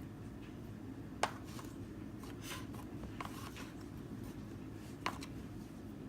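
Chicken pieces being rubbed and turned in flour in a bowl: soft rustling scrapes, with two sharp knocks, about a second in and near the end, over a steady low hum.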